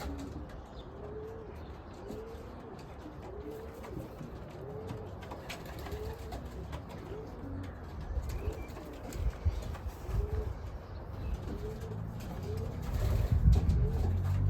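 Racing pigeons cooing, a series of short rising-and-falling coos repeated about once a second, over a low rumbling background that gets louder near the end.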